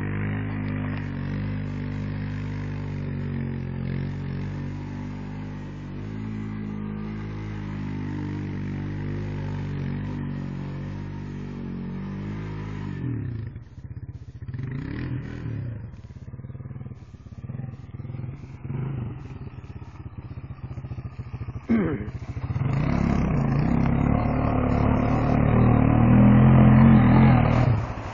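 Honda ATV engine running steadily at a distance, then revving up and down unevenly as the four-wheeler churns through mud, growing loud near the end as it comes close.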